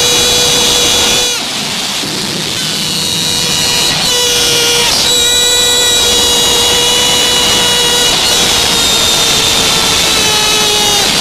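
Loud stadium crowd noise with long, held horn-like tones sounding over it. The tone breaks off briefly about a second and a half in and dips slightly in pitch near the end.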